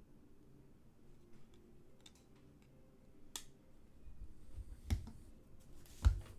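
Scattered light clicks and taps of things handled on a desk, with a heavier thump about five seconds in and another, the loudest, about six seconds in.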